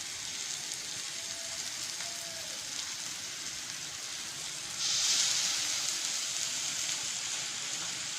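Onion, tomato and spice masala sizzling in hot oil as it is sautéed. About five seconds in, the sizzle suddenly grows louder and brighter as the thuthuvelai leaves go into the hot pan.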